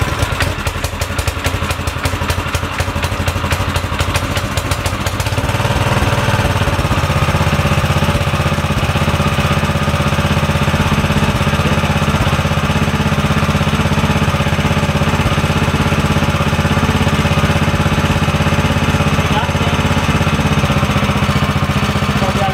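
The 7 HP single-cylinder four-stroke petrol engine of a YA-OKE WP30 water pump running just after being started: unevenly with a fast rattling beat at first, then settling about five seconds in into a steady, even, slightly louder run. It runs smoothly.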